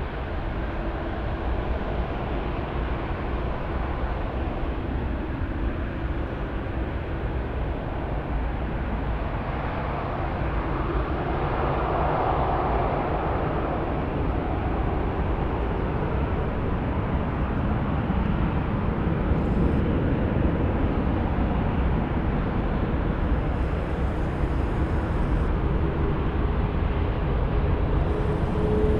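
Airbus A340-600's four Rolls-Royce Trent 500 jet engines running: a steady, deep rumble that grows slowly louder, with a faint steady whine coming in near the end.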